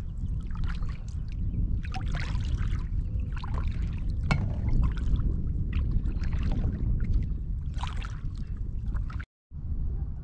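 Kayak paddle strokes: the blades dip and splash in the water about every second and a half, over a steady low rumble of wind on the microphone.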